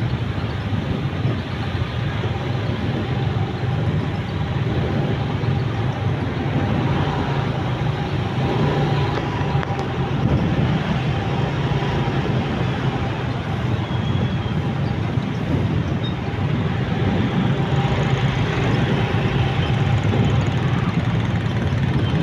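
Steady traffic noise heard from a moving motorcycle: motorbike and car engines and tyre noise, slightly louder in the second half as the bike closes in among other scooters.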